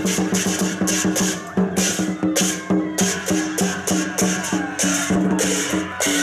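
Lion dance percussion band playing a fast, steady beat: drum strokes with cymbals clashing several times a second.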